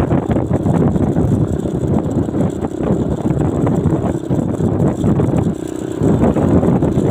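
Travel noise from riding along a road in a moving vehicle: a steady, rough rumble of engine, tyres and wind on the microphone, easing briefly about five and a half seconds in.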